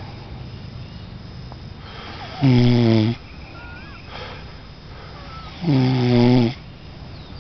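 A man snoring: two loud, drawn-out pitched snores about three seconds apart, with quiet breathing between them.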